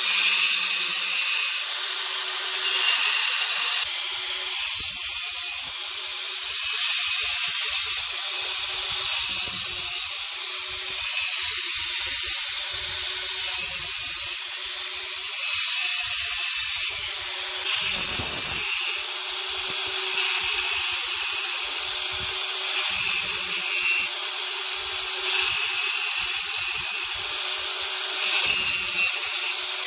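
Repeated abrasive rubbing strokes on the steel of a hand saw being restored, a hissing scrape that swells and fades about once every two seconds.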